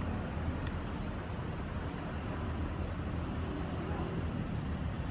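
An insect, cricket-like, chirping in a steady high pulse about five times a second, louder for a moment a little past halfway, over a steady low background rumble.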